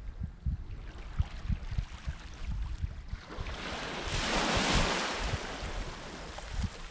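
A small wave washing in over the rocky shore, a hiss that swells and fades about four seconds in, with gusty wind buffeting the microphone throughout.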